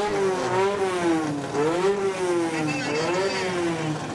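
Engine of a rally-raid competition vehicle being revved, its pitch rising and falling in several waves.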